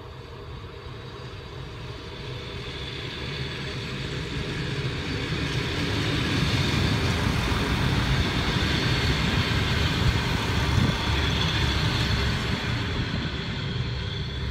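ALn 663 and ALn 668 diesel railcars running through a station without stopping. The engine and wheel rumble grows over the first few seconds, is loudest as the cars pass, and eases a little near the end.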